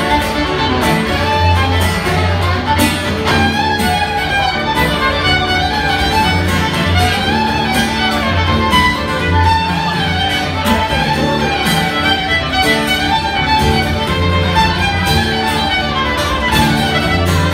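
Fiddle played live on stage, a busy bowed melody with a steady low bass underneath.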